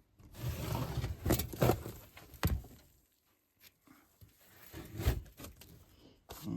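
Rustling and handling noise with several sharp knocks in the first few seconds, a brief pause, then a couple more knocks near the end.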